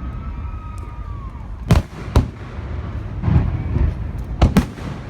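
Aerial fireworks going off: sharp bangs, two close together a couple of seconds in and another close pair near the end, over a continuous low rumble of bursts.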